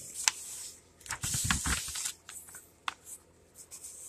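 Paper book pages rustling and being turned by hand, with several sharp papery snaps and taps.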